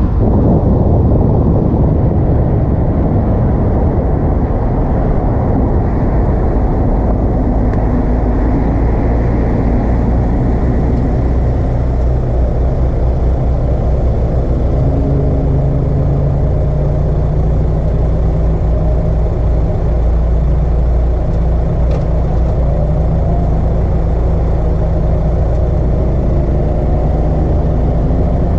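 Car engine fitted with an Acuity cold air intake, running steadily under way, its engine note drifting slowly up and down.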